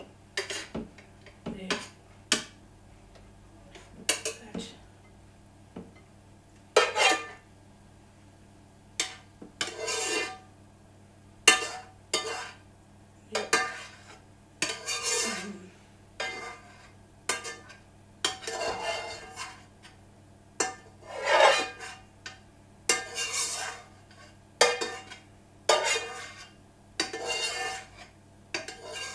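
A kitchen utensil scraping and scooping food around a frying pan in a string of separate strokes every second or two, some quick, some drawn out to about a second, with clinks of metal on the pan.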